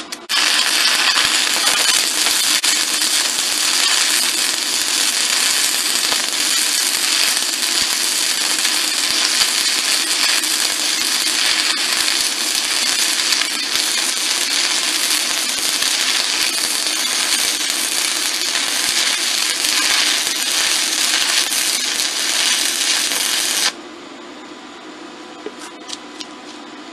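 Stick-welding arc of a 1/8-inch E6010 rod: a steady, loud crackling hiss that starts just after a brief strike at the very beginning and holds unbroken for about 23 seconds, then cuts off suddenly as the arc is broken. A few faint ticks follow.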